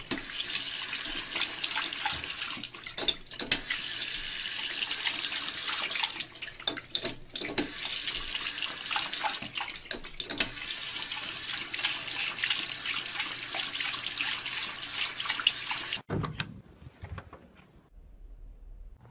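Water running steadily, as from a tap into a sink, with small splashes; it stops abruptly about sixteen seconds in.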